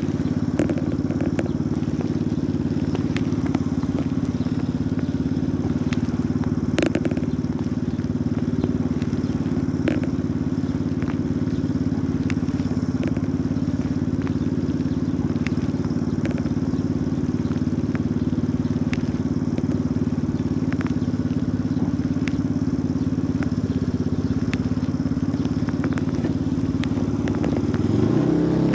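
Motorcycle engine idling steadily at a standstill, with scattered light ticks. Near the end it revs up, rising in pitch, as the bike pulls away.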